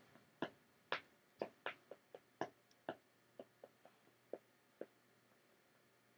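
A run of about fourteen light, sharp clicks at uneven spacing over the first five seconds, growing softer toward the end.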